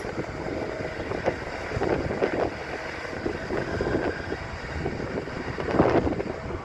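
Excavator working, its engine running with a steady low rumble, while wind buffets the microphone in gusts.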